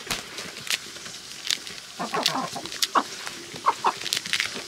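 Chickens clucking: a run of short calls from about two seconds in, with short sharp clicks between.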